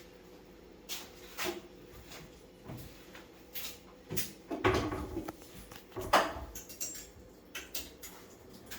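Irregular knocks and clatters of hard objects being handled and set down, about nine in all, the loudest about six seconds in.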